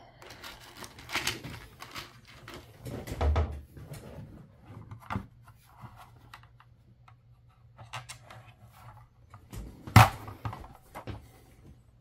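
Hands handling a pixel controller board and its mounting plate on a wooden table: scattered clicks, taps and rustling, with one sharp knock about ten seconds in.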